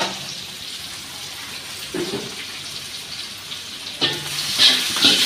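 Sliced onions and whole spices frying in an aluminium kadai: a steady sizzle with the scrape of a metal spatula stirring, growing louder about four seconds in.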